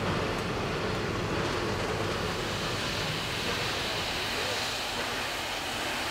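Steam-hauled passenger train behind Victorian Railways R class locomotive R761 rolling past: a steady noise of wheels and running gear. Its low end fades about four seconds in, leaving a higher hiss.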